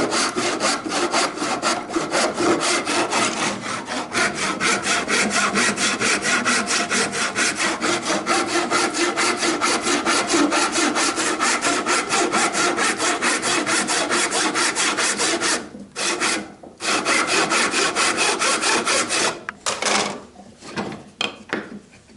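Tenon saw cutting through timber by hand in a quick, steady rhythm of strokes, pausing briefly twice about three-quarters of the way through and stopping near the end.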